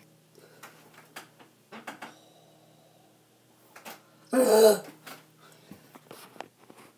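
Faint knocks and rustles of an iPad being handled and set in place, with one short, loud wordless vocal noise from a girl about four seconds in.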